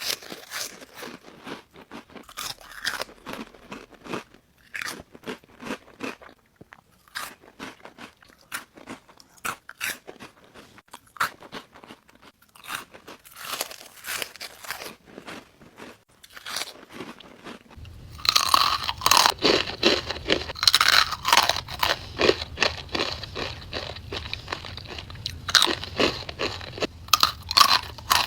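Crunchy snack chips being bitten and chewed close to the microphone: a run of sharp, irregular crunches. About two-thirds of the way in, the crunching gets louder and denser.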